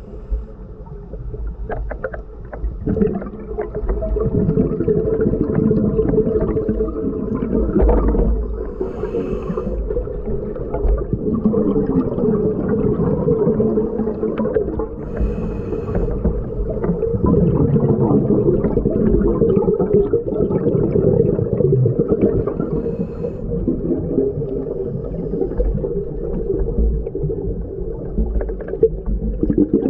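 Muffled underwater ambience picked up by a camera in a waterproof housing: a steady low hum with shifting, churning noise and no clear highs.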